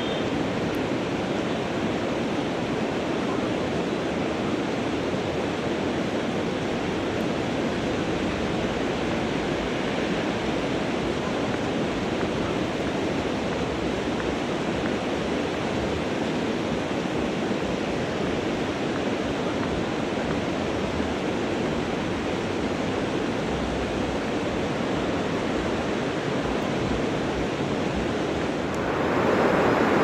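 Steady rushing of river water, an even noise with no rhythm. Near the end it steps up louder.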